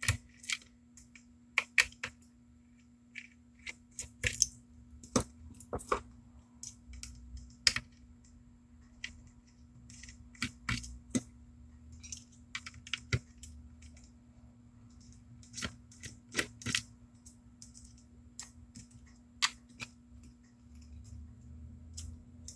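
Irregular small clicks and taps of a screwdriver and handled plastic parts as four small screws are undone from an electric shaver's plastic housing, over a faint steady hum.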